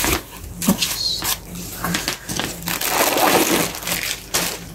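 Tissue paper and plastic packing being rustled and crinkled as they are pulled out of a handbag, with irregular scrunching and rustling throughout.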